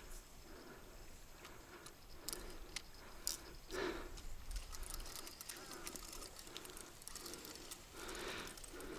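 Quiet riverside ambience with faint rustling and a few soft clicks, from handling gear.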